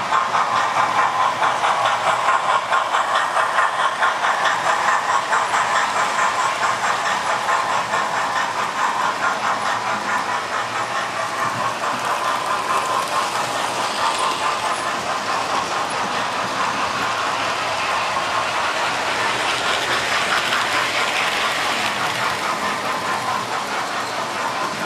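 Model railway trains running past on the layout track: a steady whirr with fast, regular clicking of the wheels over the rail joints.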